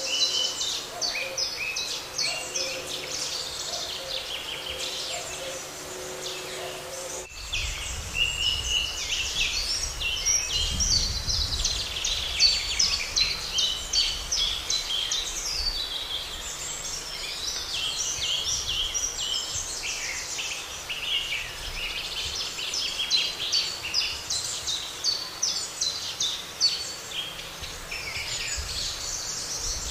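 Many songbirds singing at once, a dense chorus of overlapping chirps, trills and whistles. About seven seconds in the sound cuts abruptly to another stretch of chorus with a low rumble underneath.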